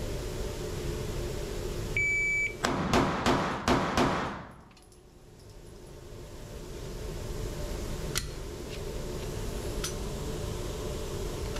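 A shot timer beeps once, then a pistol fires five quick shots in about a second and a half, echoing in an indoor range. Two faint clicks come later, over a steady low hum.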